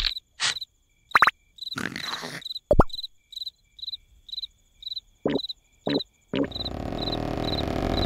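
Cricket chirping in a steady rhythm, about two chirps a second, as night ambience. Several short cartoon squeaks and grunts break in, and a low steady rumble comes in about three-quarters of the way through.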